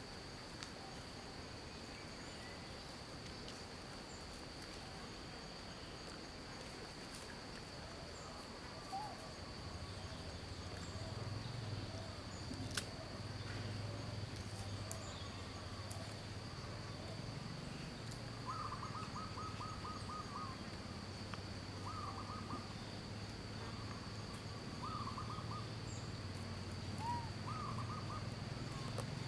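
Faint outdoor ambience: a steady, high insect drone, with short repeated bird calls in the second half. A low hum comes in about a third of the way through.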